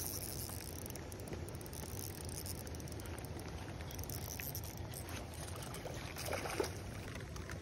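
Steady patter of rain on the pond surface, with a brief splash about six seconds in as a hooked trout thrashes at the landing net.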